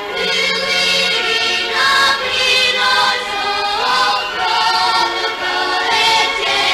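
Choir singing over music, several voices holding and changing notes together.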